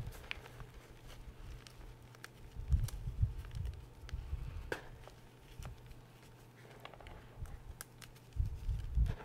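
Hands digging and pressing into crumbled gym chalk powder: soft muffled thuds of the powder being squeezed, about three seconds in and again near the end, with faint scattered crackles of small chunks breaking.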